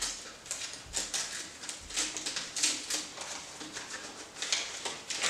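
Gift-wrapping paper rustling and crinkling as a wrapped present is handled and unwrapped, in irregular crackles.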